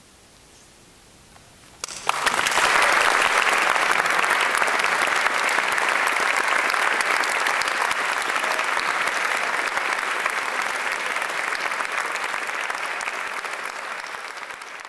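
Audience applause breaks out suddenly about two seconds in, after a quiet pause, and goes on as dense, steady clapping that eases slightly toward the end.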